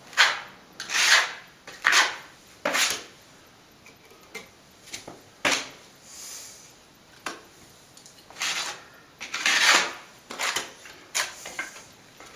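A plastering blade scraping wet cornice cement onto a wall in about a dozen short, uneven strokes, spreading and feathering the first white coat.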